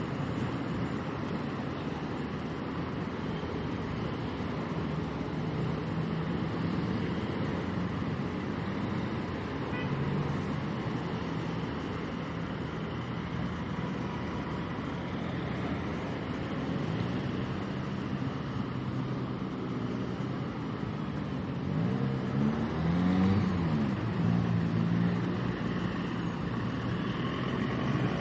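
Motorcycle engine running steadily, then revved up and down several times in the last third, growing a little louder.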